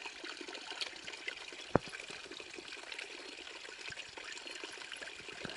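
Small river water trickling steadily, with a single sharp click a little under two seconds in.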